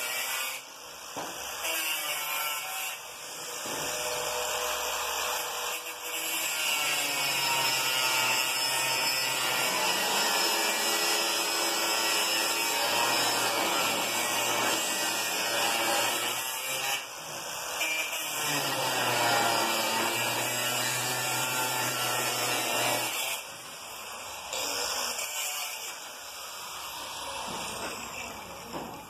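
Angle grinder cutting into steel tube, its whine sagging and rising as the disc bites in and eases off, with a few short pauses and lighter running near the end. The cut is shaping a fish-mouth notch so the tube can sit against the gate frame.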